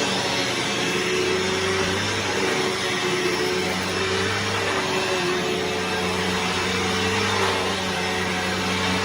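Bissell Momentum 82G7-1 upright vacuum running while vacuuming: a steady motor drone whose pitch shifts slightly now and then. Its brush roll is on the noisy side, which the owner expects new bearings to cure.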